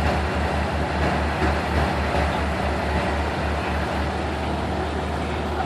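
A heavy machine's engine running, with a low throb pulsing about five times a second that smooths into a steady hum about four seconds in.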